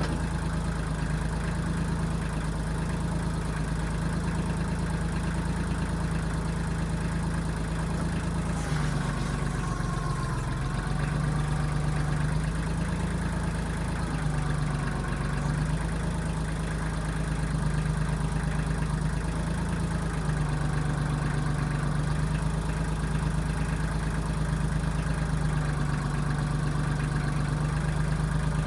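1995 Kubota backhoe's diesel engine running steadily, its note dipping and recovering a few times as the machine works. A brief sharp knock about nine seconds in.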